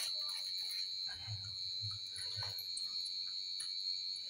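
Faint clicks and soft low thuds of people eating fried pakoras by hand, over a steady high-pitched whine.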